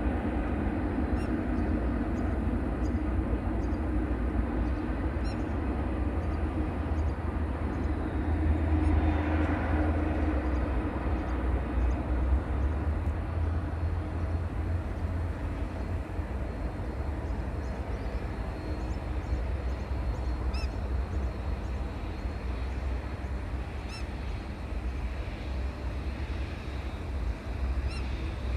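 Jet airliner engines rumbling steadily with a deep low rumble, swelling briefly about nine seconds in.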